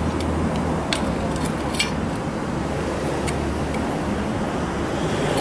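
Steady low background hum and rumble, with a few light clicks and taps as a chrome windshield trim molding is pressed into place against the car body.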